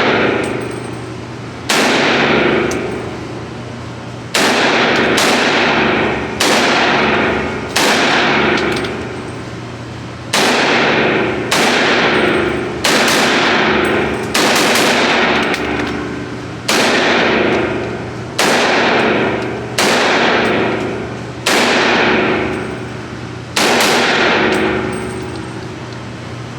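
A rifle chambered in .300 Blackout fired in a string of single shots, about twenty with uneven gaps of roughly a second, each shot ringing out in a long echo. A steady low hum runs underneath.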